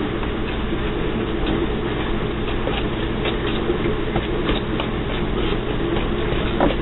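Batter being scooped: a wooden spoon scraping and clicking against a stainless steel mixing bowl in light, irregular strokes, with a sharper knock near the end, over a steady low hum.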